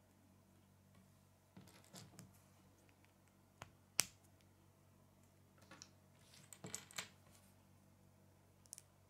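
Small plastic Lego pieces clicking together as they are handled and pressed between the fingers: scattered light clicks, with one sharp snap about four seconds in and a quick run of clicks a little after.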